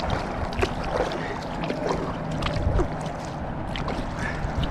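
Kayak paddling on calm water: irregular splashes and drips from the paddle blades over a steady low rumble.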